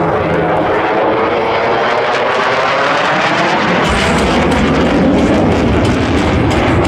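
F-16 fighter jet flying past. Its engine noise carries a slowly falling whine at first, then from about four seconds in turns into a heavy low rumble with crackling on top.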